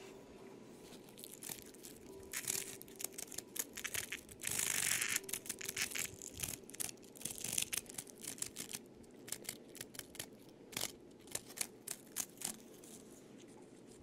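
Newly moulted male dog-day cicada with a deformed wing fluttering and scrabbling on a wooden tabletop: irregular faint ticks and rustles, with one longer noisy buzz about four to six seconds in. The buzz is a weak, not-too-loud call from a cicada only beginning to be able to make its sound.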